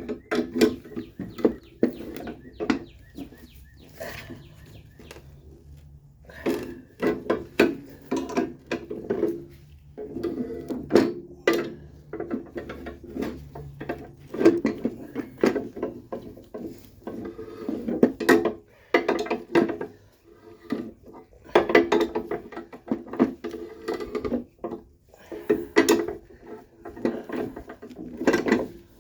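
Coil spring compressor being tightened by hand on a strut: metallic clicking and clinking in repeated runs of a second or two, with short pauses between them.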